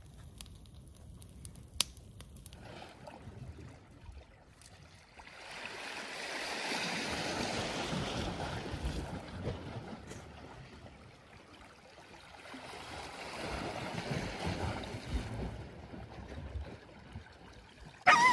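Wood fire crackling faintly, with one sharp snap about two seconds in. Then open lake water washes against shore ice, a rushing sound that swells and fades twice.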